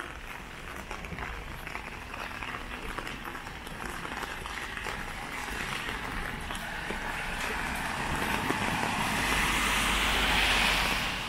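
Rain pattering and dripping close by, with the hiss of a motor vehicle's tyres on the wet road growing steadily louder and loudest near the end, along with a low engine rumble.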